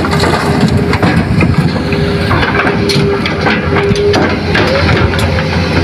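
Hitachi hydraulic excavator's diesel engine running steadily, with an on-and-off whine and scattered sharp clicks over it.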